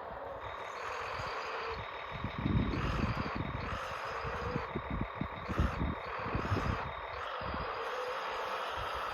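Radio-controlled Kyosho Blizzard tracked vehicle running: a steady motor-and-gear whine that rises and falls a little in pitch with the throttle, over an irregular low rumbling that swells and fades.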